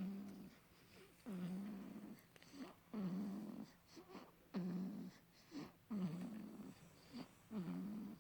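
Someone snoring steadily in sleep, one snore about every one and a half seconds.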